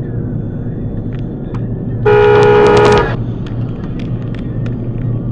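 Steady engine and road noise heard from inside a moving car, broken about two seconds in by a single car horn blast about a second long. After it come several faint clicks and knocks.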